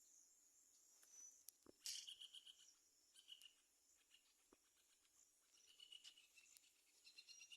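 Faint insect chirping, likely crickets, in short pulsed trills that come and go, with a higher steady insect hum above them and a couple of soft clicks.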